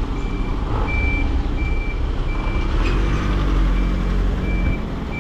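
A tilt-tray tow truck's warning beeper sounding a steady string of short high beeps, about one every three-quarters of a second, while the tray is tilted to unload a car. Under the beeps the truck's engine runs with a low rumble that grows stronger about three seconds in.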